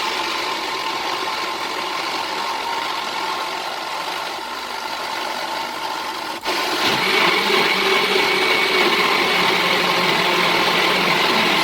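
Countertop jug blender running steadily, puréeing cooked butternut squash, potato and onion into smooth soup. It cuts out briefly about six and a half seconds in and comes back louder.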